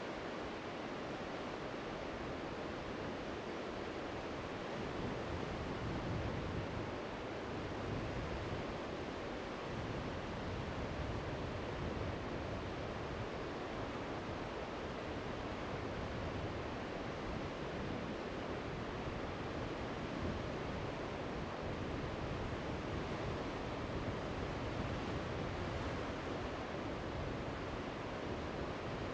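Steady wash of ocean surf breaking, an even noise with a slowly swelling low rumble.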